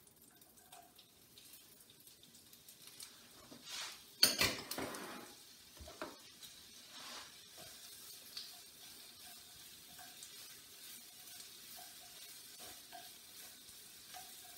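Chopped onions tipped into a frying pan of hot butter and oil with garlic cloves: a sharp burst of sizzling about four seconds in, then steady sizzling frying with small taps and scrapes of the utensil as they are stirred.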